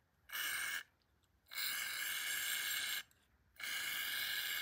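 Aerosol can of brake cleaner sprayed into a small nitro engine block in three hissing bursts: a short one, then a longer one of about a second and a half, then one of about a second.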